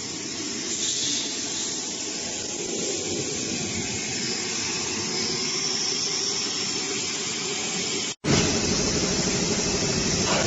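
Steady industrial machinery noise: a continuous hiss over a low hum. It cuts out for an instant about eight seconds in, then carries on.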